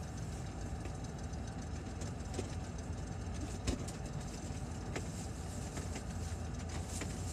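Car engine idling steadily, heard from inside the cabin as a low rumble, with a few faint knocks as someone moves about in the back seat.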